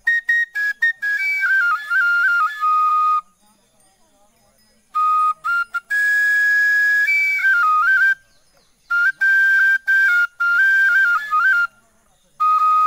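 Bamboo flute (bansuri), blown from the end, playing a tune in four short phrases with pauses between them: quick tongued notes stepping up and down, a few held notes, and the last phrase a long steady low note.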